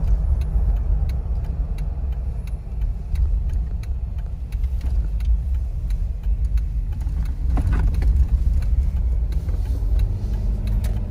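Jeep Wrangler driving on a paved road, heard from inside the cabin: a steady low rumble of engine and tyres, with faint light clicks and rattles.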